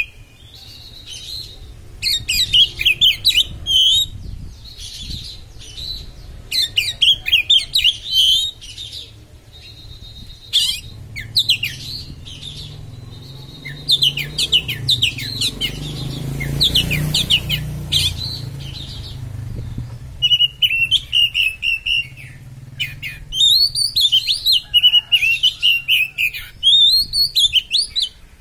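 Oriental magpie-robin (kacer) singing in sharp, rapid bursts of chattering and whistled phrases, with short pauses between them: the 'konslet' style of song. A low rumble swells and fades in the middle.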